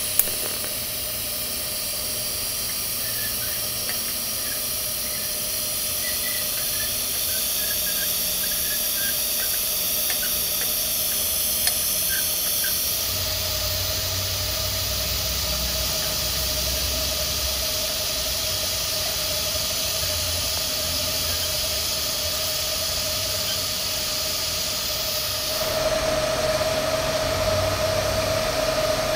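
TIG welding arc burning in the root pass of a carbon steel pipe joint, a steady hiss with a faint steady tone under it. The sound shifts slightly about 13 seconds in and again a few seconds before the end.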